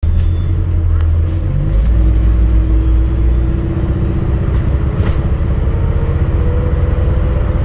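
ADL Enviro400 MMC hybrid double-decker bus running on the road: a heavy low rumble with a steady whine and a second whine that slowly rises in pitch, plus a few sharp rattling knocks.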